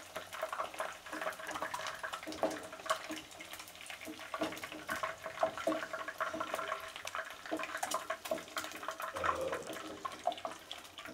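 Hot vegetable oil sizzling and crackling with many small pops around whole boiled eggs frying in a nonstick pan, with light scrapes and knocks of a wooden spatula as the eggs are turned and lifted out.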